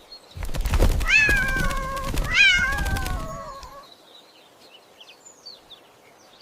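A cat meows twice, each meow rising then falling in pitch, over a dense crackly, clicking noise that stops before the four-second mark; faint short high chirps follow.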